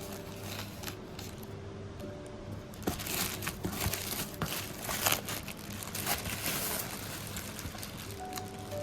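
Packaging crinkling and rustling as it is handled, busiest in the middle of the stretch, over soft background music.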